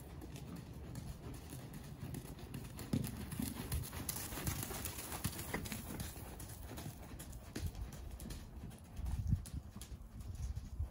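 Horse's hoofbeats on the sand footing of a riding arena as the horse is ridden at a working gait, a run of soft, uneven low thuds.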